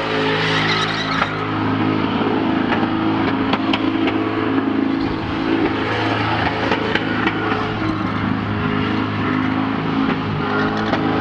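Car engine running at a steady, even pitch, loud and unbroken, with scattered short clicks over it.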